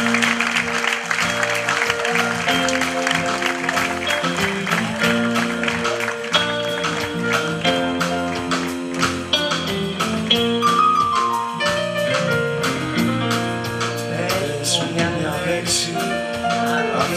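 Live band of electric guitar, bass guitar and drum kit playing a song's instrumental intro, with audience applause dying away over the first few seconds.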